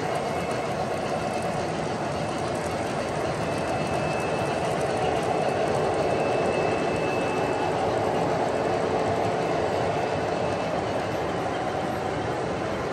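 Model freight cars rolling past on an O-gauge layout: a steady rolling clatter of metal wheels on the rails, a little louder in the middle, with faint high squeal tones.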